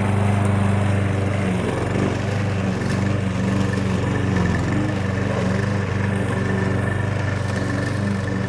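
Petrol lawn mower's 7.25 hp engine running steadily, its note wavering briefly about two seconds in.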